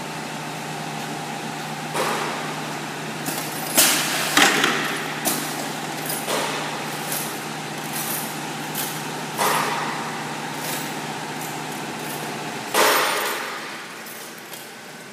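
Pneumatic four-corner PVC window welding machine: a steady machine hum with repeated short, sharp hisses of air as its cylinders vent. The loudest hisses come about 4 s in and near 13 s, where the hum stops.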